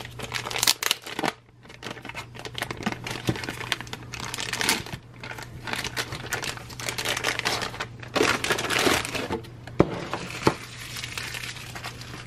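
Clear plastic bag crinkling and rustling in irregular spurts as a small plastic toy boombox is worked out of it, with two sharp clicks about ten seconds in.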